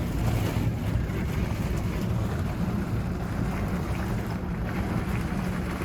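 Steady low rumble of storm wind buffeting the moving cable car cabin and the microphone.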